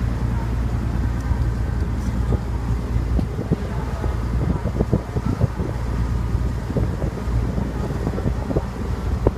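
Wind buffeting the microphone in irregular gusts over a steady low engine drone, from heavy machinery working a dockside lift.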